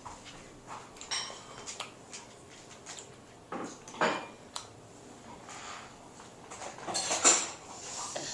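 Scattered clinks and knocks of a spoon against a soup bowl at the table, with a louder knock about four seconds in and the busiest, loudest clatter around seven seconds in.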